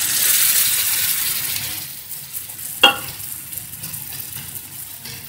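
Hot oil sizzling in a steel kadai as a ground coriander-leaf paste is added to the fried masala. The sizzle is loud at first and dies down about two seconds in, with a single ringing clink of metal on the pan near the middle.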